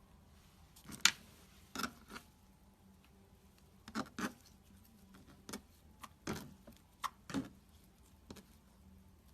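Slime being squished and worked by hand, giving about a dozen irregular sticky pops and clicks, the loudest about a second in.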